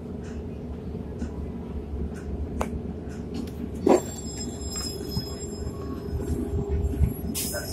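Interior of a moving city bus: steady engine and road rumble with a drone, and loose rattles and clicks from the cabin. A single louder knock comes about four seconds in.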